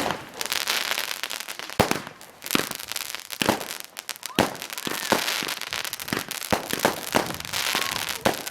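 Fireworks going off: a quick, irregular run of sharp bangs and crackles, with louder cracks at about two and four and a half seconds in.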